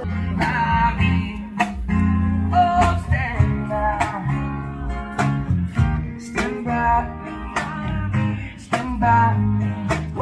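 Guitar-led music with a steady bass line and sharp percussive beats.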